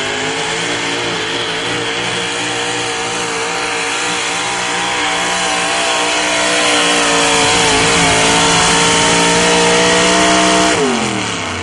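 Four-wheel-drive pulling truck's engine running flat out under full load as it drags the weight-transfer sled. The pitch wavers as the truck bounces down the track, then rises and grows louder. About a second before the end it drops off sharply as the pull ends and the driver lets off.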